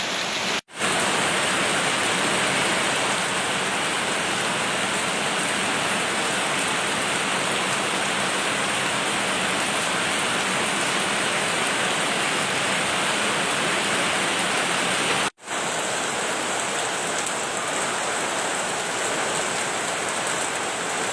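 Rain falling steadily, a dense even hiss of water on surfaces, broken by two momentary cuts to silence, one under a second in and one about fifteen seconds in.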